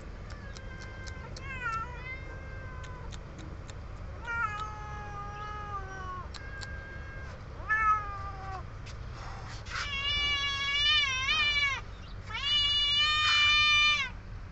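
Young cats meowing again and again to beg for food. The calls grow longer and louder, ending in two long, wavering meows near the end.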